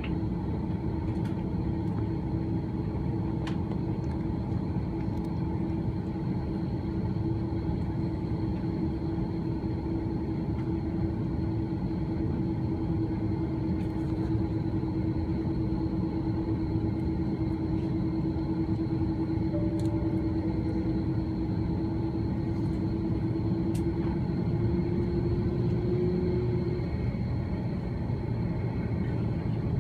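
Cabin noise of an Airbus A330-300 taxiing: a steady low rumble with a constant hum, which rises slightly in pitch and then stops near the end. A few faint clicks sound over it.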